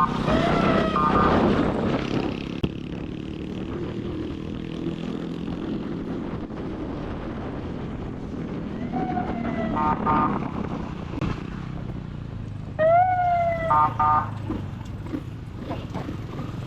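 Electronic police siren fitted to a motorcycle, given three short blips: each a quick rising-then-falling swoop followed by a brief stepped warble, about a second in, around nine seconds and around thirteen seconds. The motorcycle's engine runs underneath.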